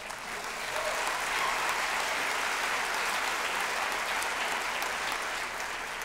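A large audience applauding, swelling over the first second and tapering off near the end.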